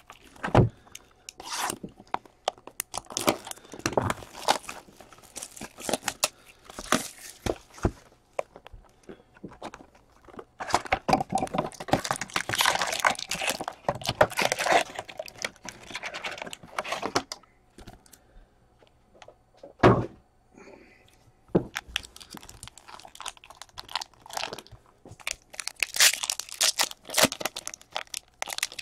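Plastic wrap and foil card packs crinkling and tearing in irregular bursts of crackling, thickest in the middle. There is one sharp snap about twenty seconds in.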